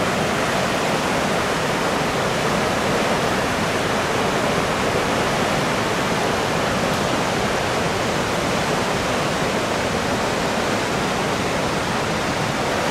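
Skradinski Buk, the largest waterfall on the Krka River: a steady, loud rush of falling water with no change in level.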